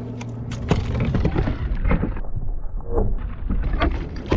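Large bass thrashing and splashing at the surface as it is scooped into a landing net. From about a second in there is a rapid, irregular run of splashes and knocks.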